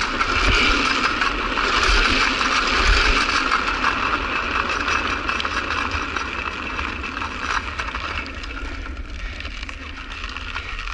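Drift trike's wheels rolling and sliding on asphalt: a steady rushing scrape over a low rumble, fading as the trike slows over the last few seconds.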